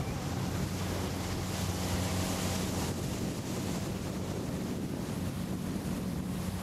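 Motorboat engine running at low speed with a steady low hum, under wind noise on the microphone.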